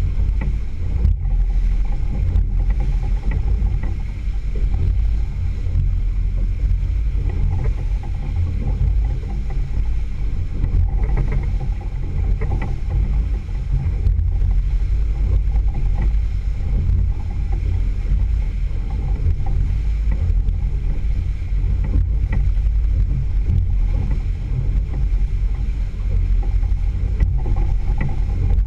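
Single outboard motor running steadily as the boat moves through the water, a low rumble mixed with the wash of the churning wake.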